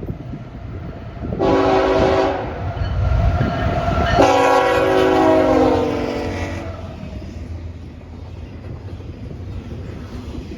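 Freight locomotive's multi-chime air horn sounding a short blast, then a longer blast about two seconds later that drops in pitch near its end. Under it, the low rumble of the passing train.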